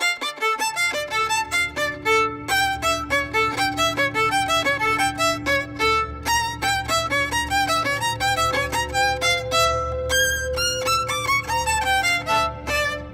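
Background music: a fast violin melody of quick, rapid notes over a sustained low drone.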